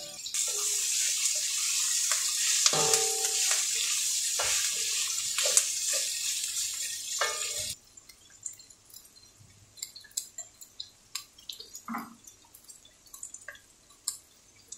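Onions, ginger and curry leaves frying in oil in a wok, a steady hissing sizzle with scattered crackles that cuts off abruptly about eight seconds in. After that, faint clicks and a small knock from handling a curry powder packet and a bowl.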